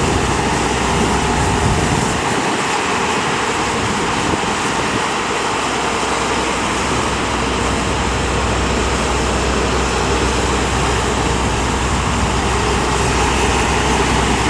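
Loud, steady noise of passing road traffic mixed with engines of construction equipment digging at the site, with no single event standing out.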